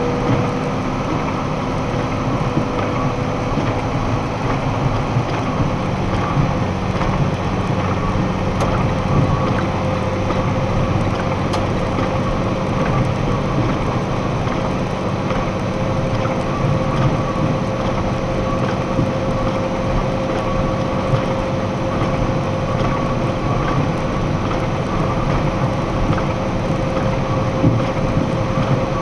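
Box truck cruising at highway speed, heard from inside the cab: a steady drone of engine and tyre noise on a wet road.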